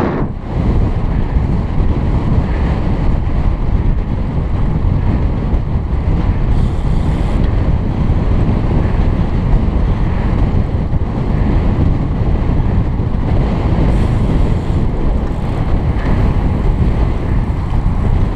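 Wind buffeting a helmet-mounted camera's microphone on a road bike ridden in a group race: a loud, steady, low rumble.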